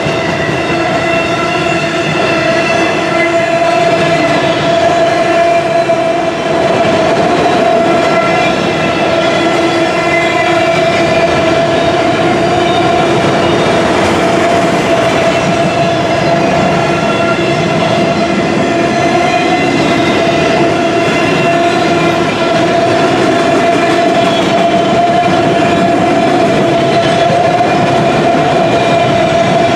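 Auto rack cars of a freight train rolling past at speed, with a loud steady rumble and clatter of wheels on rail. A steady ringing tone at several pitches runs under it.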